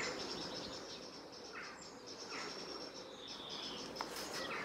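Quiet outdoor ambience of small birds: a few short chirps and brief falling whistles over a faint, steady high-pitched tone, with one light click about four seconds in.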